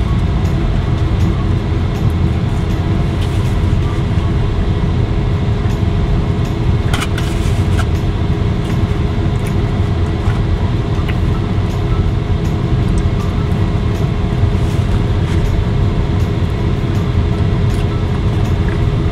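Steady low rumble inside a car's cabin, with a couple of brief clicks near the middle as food is picked from a foam takeout box.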